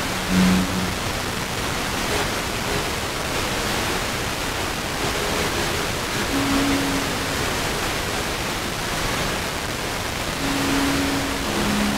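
FM radio receiver tuned to a weak, distant station: a steady rush of static hiss with faint held notes of classical music surfacing now and then beneath it. The signal is barely above the noise floor.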